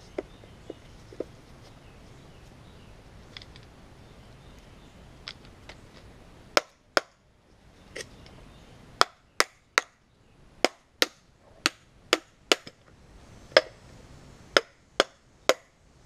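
A hammer tapping on the metal housing of an ECM condenser fan motor as it is lined up and reassembled: about fifteen sharp knocks in uneven groups through the second half, with a few light clicks before.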